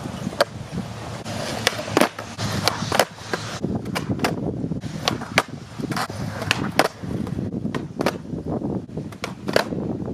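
Skateboard wheels rolling on smooth concrete with a steady low rumble, broken by many sharp clacks as the board's tail pops and the deck lands back on the ground during flatground tricks.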